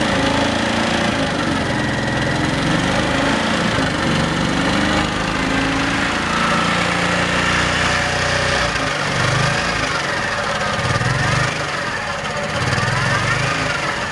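Suzuki Gemma 125 scooter engine running, its revs rising and falling several times.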